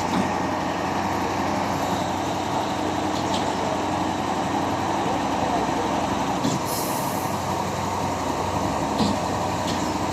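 Putzmeister truck-mounted concrete pump running steadily, with a short hiss about six and a half seconds in and a few light clicks.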